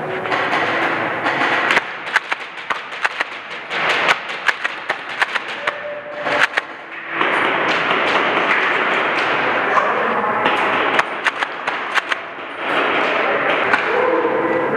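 Airsoft gunfire in an indoor arena: runs of sharp snapping shots and BB impacts, several a second, alternating with stretches of noisy clatter.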